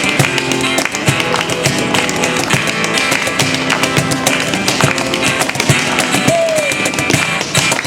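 A band playing live music with a steady beat.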